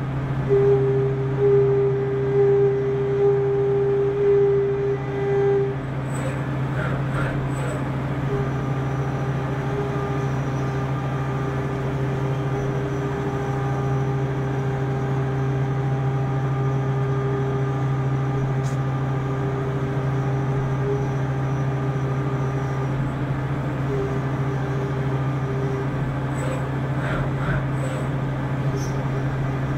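Spinner U-620 CNC machining centre running: a steady low hum with a higher steady tone that drops in level about six seconds in, and a few short clicks near the start and again near the end.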